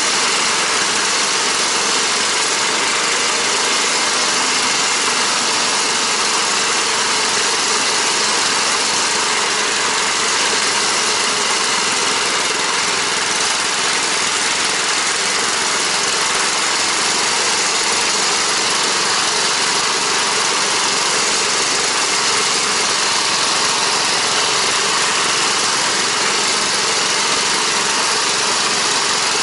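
Bars Sledopyt motorized snow tow's small air-cooled petrol engine running steadily under way, its note and loudness unchanging throughout.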